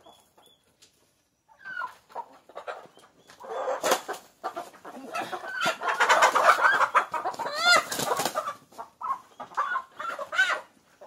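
Hybrid chickens squawking and cackling loudly as they are grabbed and handled, a burst of repeated short rising squawks starting about two seconds in and easing off near the end.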